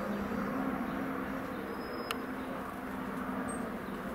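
Aérospatiale Alouette II helicopter circling overhead, its rotor and turbine making a steady low hum. A single brief click comes about two seconds in.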